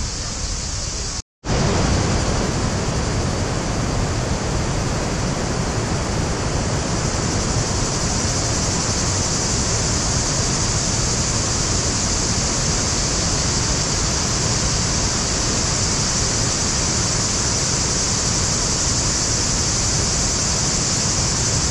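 A waterfall rushing, a steady, loud, even wash of falling water that breaks off for a split second just over a second in.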